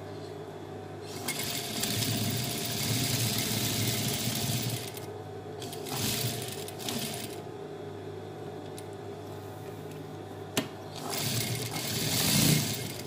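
Industrial lockstitch sewing machine stitching a fabric cuff closed, running in three bursts: a long run, a short one, then another near the end, with a low steady hum between runs. A single sharp click comes about ten seconds in.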